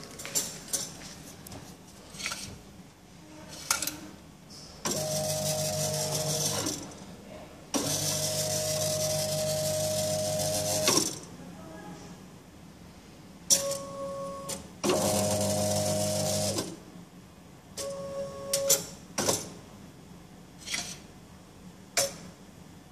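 CD jukebox disc-changer mechanism running its test cycle: a motor runs in three spells of about two to three seconds each, with clicks and clunks between them and two short hums.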